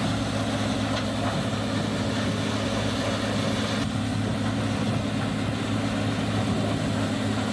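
Large diesel engine of a Bandit Beast 4680 tracked wood chipper running steadily with an even, low hum.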